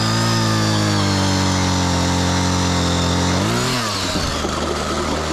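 Tanaka two-stroke powerhead on a gas ice auger running hard while drilling through pond ice. Its steady engine note sags slowly under load, dips and picks up again sharply about three and a half seconds in, then settles into a lower, rougher running.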